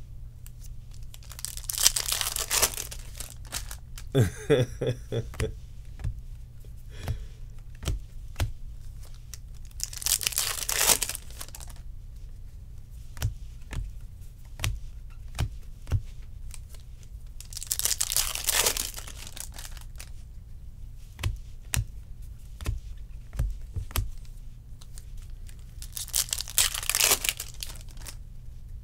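Foil wrappers of Bowman baseball card packs being torn open four times, about eight seconds apart, each tear lasting a second or so. In between, cards tap and slide as a stack is flipped through, and a brief pitched sound comes about four seconds in.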